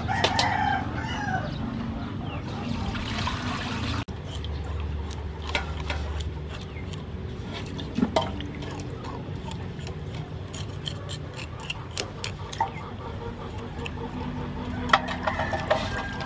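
A whole fish being cleaned in a large aluminium basin of water, scraped with a knife and rubbed by hand: scattered short clicks and splashes of water. Chickens cluck in the background, most plainly at the start and near the end.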